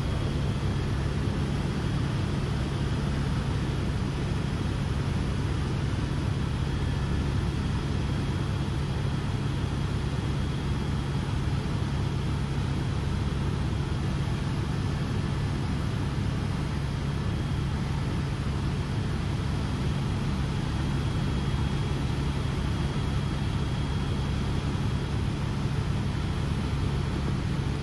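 Helicopter in flight, heard from inside the cabin: a steady, loud drone with a strong low hum and a faint high whine over it.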